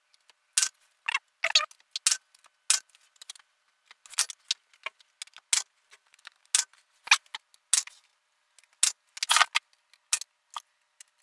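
Pneumatic brad nailer shooting brads into wooden door trim: about twenty sharp snaps, roughly two a second with short pauses between runs.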